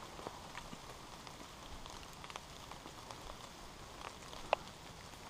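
Light rain pattering on forest leaves, with scattered drops ticking irregularly and one sharper click about four and a half seconds in.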